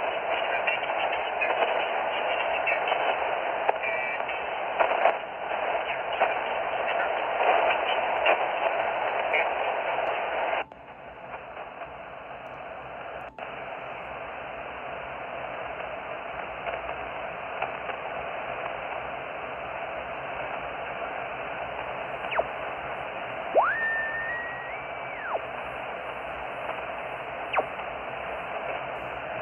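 Shortwave radio receiver tuning across the bands, its speaker giving out dense static and noise. About a third of the way in the noise drops abruptly to a quieter hiss, and near the end a short whistling tone sweeps up and steps higher in pitch before cutting off, a heterodyne from a signal being tuned past.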